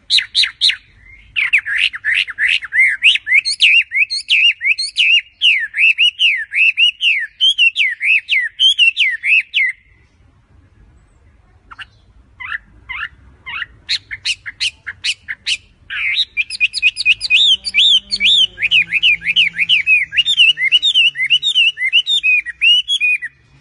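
A songbird singing long, fast twittering phrases of rapid repeated chirps. The bird breaks off for a couple of seconds about ten seconds in, gives a few scattered notes, then takes up a second long bout.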